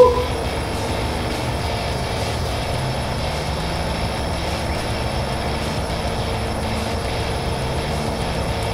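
A brief rising vocal sound from a man right at the start, then a steady low rumbling hum with a faint tone running through it.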